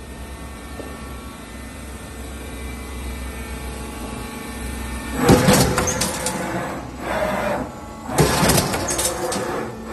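Punching press on a steel crash-barrier roll-forming line: a steady low machine hum, then two loud working cycles about three seconds apart, each starting sharply and lasting about a second and a half.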